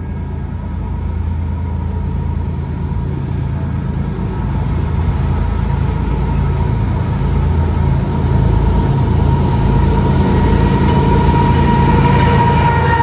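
Diesel train approaching on the line, its low engine rumble growing steadily louder, with a steady high tone above it that brightens near the end.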